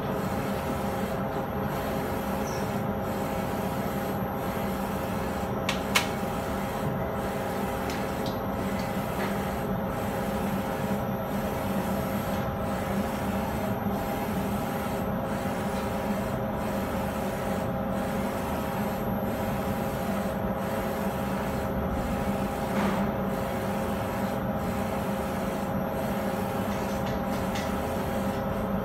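Direct-to-garment T-shirt printer running mid-print: a steady mechanical hum with the hiss of the print-head carriage pulsing regularly about once a second as it passes back and forth. A single sharp click about six seconds in.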